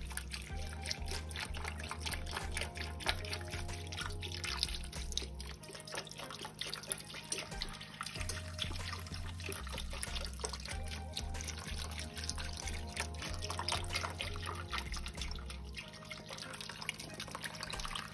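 Beef broth pouring from a carton into a roasting pan over a roast and cut vegetables, with background music and a repeating bass line underneath.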